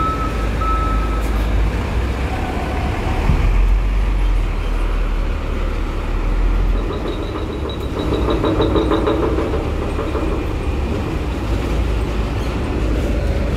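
Hino box truck's diesel engine running with a deep steady rumble as it drives up a steel ferry ramp onto the car deck. A beeping tone sounds three times near the start, and a rattling stretch comes about eight seconds in.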